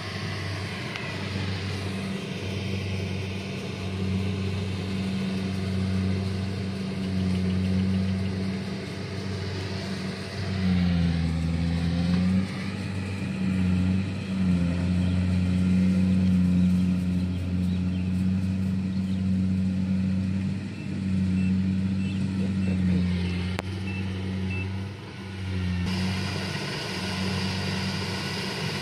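Kubota DC-70 Plus combine harvester's diesel engine running steadily under harvesting load in lodged rice, its pitch dipping briefly about eleven seconds in. A brighter hiss comes up near the end.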